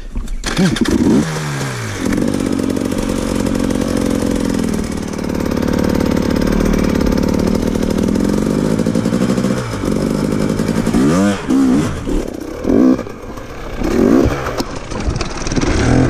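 KTM dirt bike engine revved up hard and held at high revs for several seconds under load on a rocky climb, then dropping and blipped in a series of short throttle bursts.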